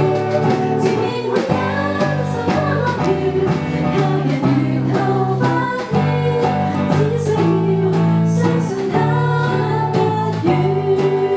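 A woman singing a slow song into a microphone, amplified through speakers, over an accompaniment with strummed guitar.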